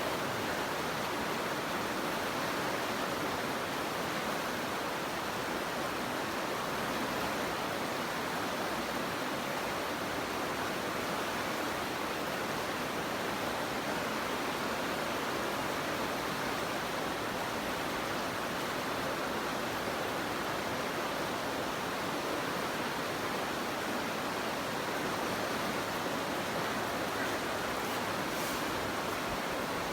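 Swat River flowing: a steady, even rush of water that neither rises nor falls.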